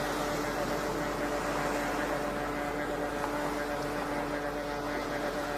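Ocean waves as a steady, even wash of water noise, with a constant low hum held under it.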